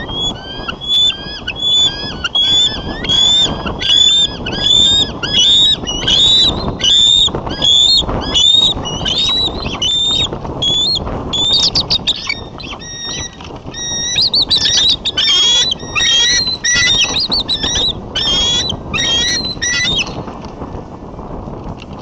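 Bald eagles calling: a run of high-pitched piping notes, about two a second, that breaks into faster chattering from about halfway. This is the alarm calling of a nesting pair at intruding eagles. Wind noise rumbles on the microphone underneath.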